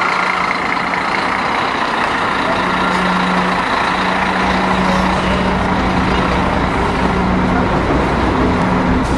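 Scania diesel engine of a Busscar Vissta Buss LO coach running as the coach pulls away: a loud, steady engine drone.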